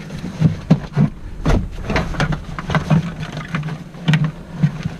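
Irregular knocks, clicks and rustling from gear being handled in a small jet boat's storage hatch.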